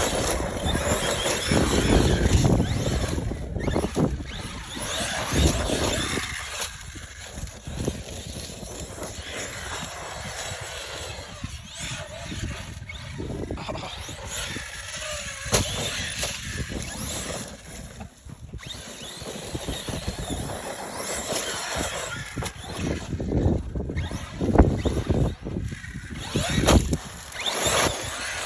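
ARRMA Fireteam 6S brushless RC car being driven hard: the motor whines up and down as it speeds up and slows, over a constant rushing noise, with several swells and dips in loudness.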